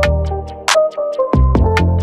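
Electronic background music with a punchy drum-machine beat over deep bass; the bass drops out for a moment about a second in.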